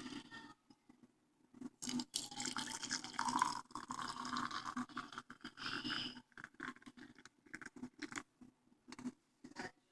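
Hot sugarcane water in a pot splashing and dripping as a boiled panela block is lifted out, with scattered clinks and knocks against the pot. The splashing is heaviest from about two to six seconds in.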